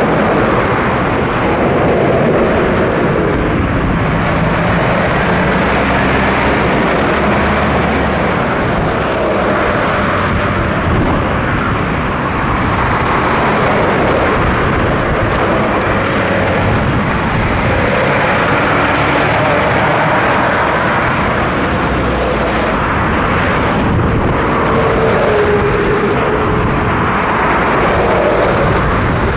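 Articulated Scania lorries passing close by on a motorway, one after another. Their tyres and diesel engines make a steady, loud rush, with other motorway traffic behind.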